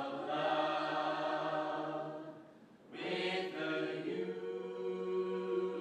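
A mixed a cappella vocal ensemble holds a sustained chord that fades away a little after two seconds in. After a brief pause, a new held chord of men's and women's voices comes in about three seconds in and sustains.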